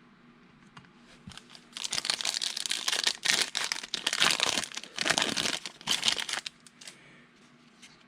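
Plastic wrapper of a trading-card pack being torn open and crumpled: a stretch of crinkling in several surges from about two seconds in until a second and a half before the end, with a few light handling ticks before it.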